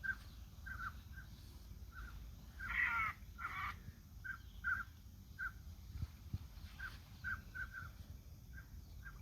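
Birds calling: a string of short, repeated calls, with two louder, harsher calls about three seconds in.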